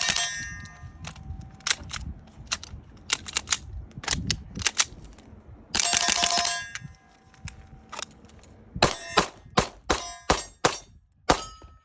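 CMMG Bravo .22 LR rifle firing strings of quick shots with short pauses between them. Steel targets ring after some of the hits.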